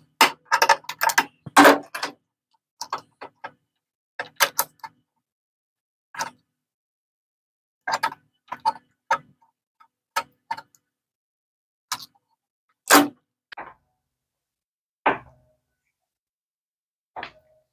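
Pliers and metal carburetor parts clicking and clinking as the old carburetor is disconnected and worked off a Tecumseh small engine: a quick run of clicks in the first two seconds, then single clicks every second or two.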